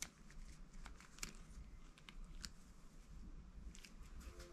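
Faint handling noise of a plastic toy bullet belt: a few light, sharp clicks and rustles scattered through, the clearest about a second in and again near two and a half seconds.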